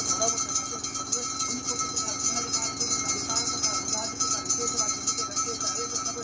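Continuous metallic ringing and jingling of the ritual bells that accompany a bhoota kola, with a murmur of voices underneath.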